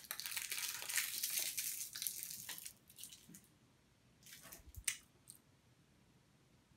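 Plastic wrapper of a hard boiled sweet crinkling for about three seconds as it is unwrapped, then a few short wet clicks and smacks as the sweet is sucked.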